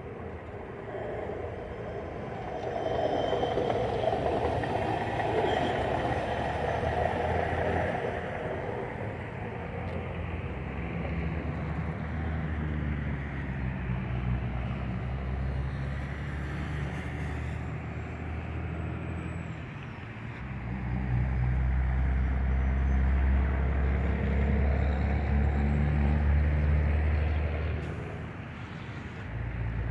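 Ford Ranger hi-rail truck running along the railway track, passing close by in the first seconds and then fading as it moves away down the line. A deeper, steady engine rumble swells about two-thirds of the way in and drops near the end.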